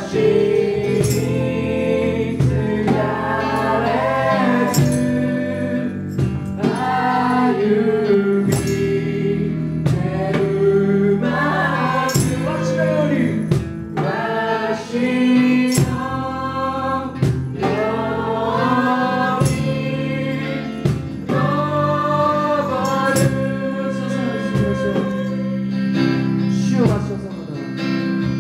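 A group of children singing a Christian song together through microphones, over an instrumental accompaniment, with tambourines shaken along in a regular beat.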